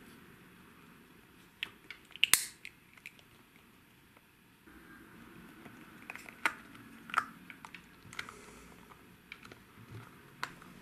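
Small plastic Num Noms toy pieces being handled, a lip-gloss pot clicking and snapping into a Num figure: scattered sharp clicks, the loudest cluster about two seconds in and more from six seconds on.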